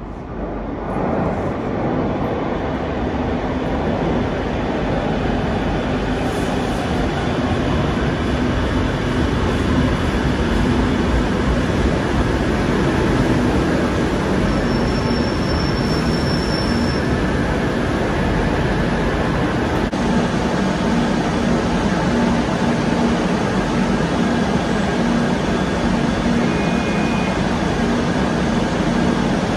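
Madrid Metro series 2000 train running into an underground station: its rumble rises about a second in and stays loud as it rolls alongside the platform. A brief high squeal comes about halfway through as it brakes.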